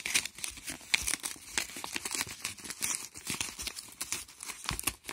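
Paper envelope handled and pulled open by hand: irregular crinkling and rustling of paper.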